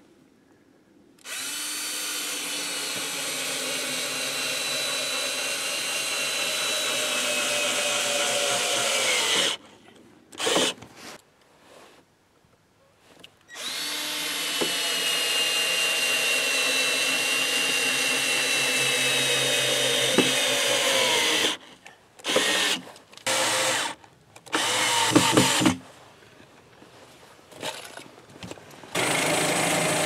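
Cordless drill boring into a wooden board in two long runs, its motor pitch slowly sinking as it works into the wood, then several short bursts. Near the end, the engine of a portable band sawmill running steadily.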